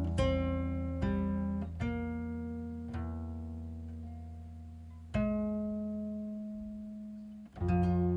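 Background music: a slow plucked-string instrumental, single notes and chords struck every second or two and left to ring and fade, with a longer held chord from about five seconds in.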